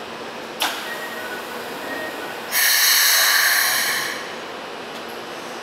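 Keikyu commuter train standing at the platform: a sharp click about half a second in, then a loud hiss of compressed air released for about a second and a half, near the middle, which then fades.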